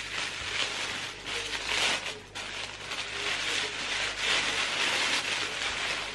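Gift wrapping rustling and crinkling as a parcel is unwrapped by hand.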